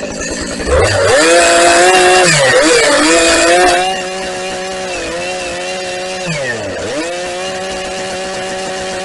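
Husqvarna 380 CD two-stroke chainsaw at full throttle, loud and rough for about three seconds as it cuts into birch. It then revs freely at a steady high pitch, with two brief dips in pitch as the throttle is let off and opened again.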